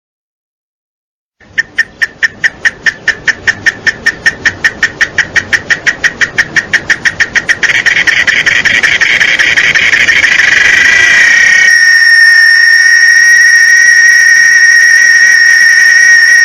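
Cicada calling. After a short silence it starts with a quick run of loud pulses, about six or seven a second, that speed up and merge into a continuous buzz, then switches to a steady, shrill, even-pitched whine.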